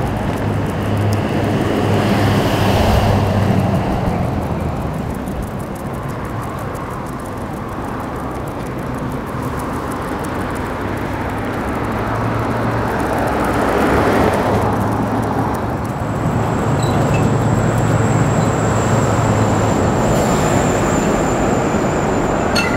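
Road traffic: cars and trucks passing one after another on a main road, engine and tyre noise swelling and fading as each goes by.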